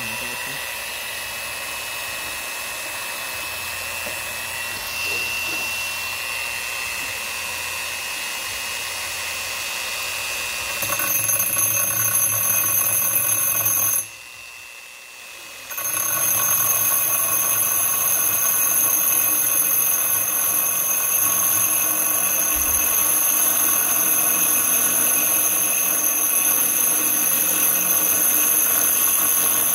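Angle grinder fitted with a core bit boring dry into a granite countertop, running with a steady high whine and grinding. It gets louder about eleven seconds in, drops away briefly around fourteen seconds, then runs on.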